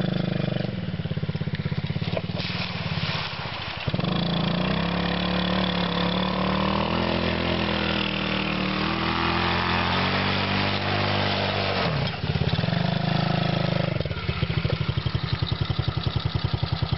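Small engine of a children's mini quad running under throttle as it drives through a puddle, its pitch rising and falling, with water splashing. About fourteen seconds in it revs once more and drops to an even, pulsing idle.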